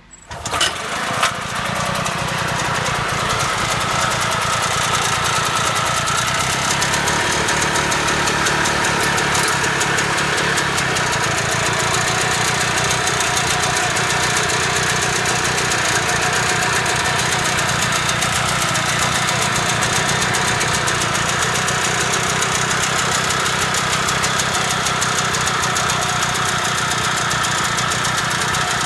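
Bucher M300 two-wheeled tractor's Rotax two-stroke engine starting, with two sharp bursts as it catches within about a second. It then runs steadily at idle.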